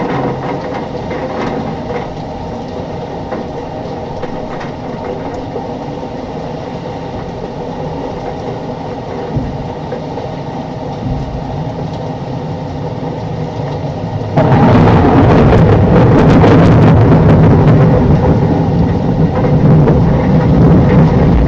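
Squall wind and downpour rushing over the microphone. About two-thirds of the way in it suddenly gets much louder, a heavy low buffeting with crackling.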